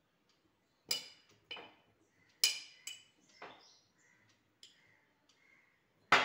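Metal spoon clinking against the inside of a glass jar as it pushes chilli-salt powder down among whole tender mangoes: a series of sharp, ringing clinks, the loudest near the end.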